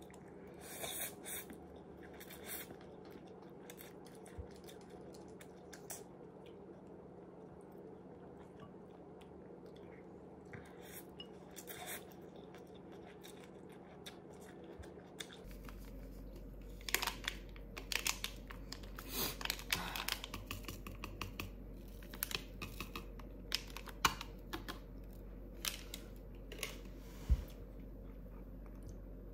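Faint chewing as spicy instant noodles are eaten with metal chopsticks. About halfway through, a run of sharp clicks and clinks follows as a glass of iced water with a metal straw and other tableware are handled.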